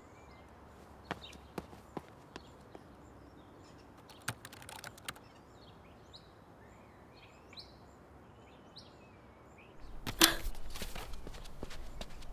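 Quiet room ambience with a few faint clicks and faint bird chirps. About ten seconds in, a louder run of knocks and shuffling begins.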